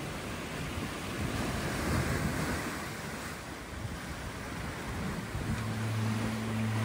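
Ocean surf breaking and foaming among rocks along a rocky shore, a steady rushing wash that swells about two seconds in. A low steady hum joins near the end.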